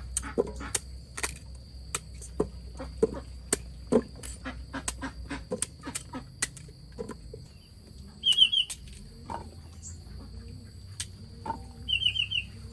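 Irregular sharp clicks and knocks, thinning out after about seven seconds. Two quick bursts of rapid high chirping bird calls come about eight and twelve seconds in, over a steady high-pitched whine.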